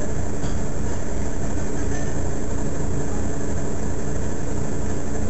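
Mercedes-Benz Citaro Facelift city bus standing with its engine idling: a steady low drone with a faint even hum above it, unchanging throughout.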